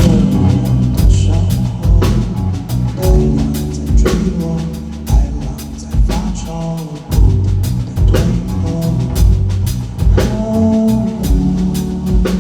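Band music with a full drum kit playing a steady beat under sustained bass and instrument notes, an instrumental passage of a song.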